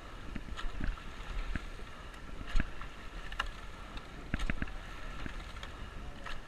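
Coxed rowing eight at race pace: sharp knocks about once a second from the sweep oars working in their oarlocks, over a steady rush of water along the hull and some wind on the microphone.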